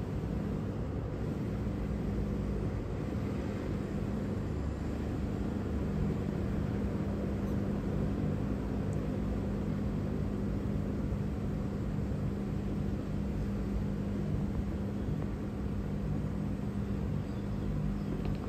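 Steady low machine hum with a constant pitch, unchanging throughout.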